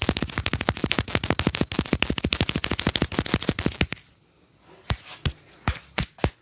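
Percussive massage: a barber's hands rapidly slapping and tapping a client, about nine quick smacks a second for four seconds. They stop abruptly, and after a short pause come five single, sharper smacks.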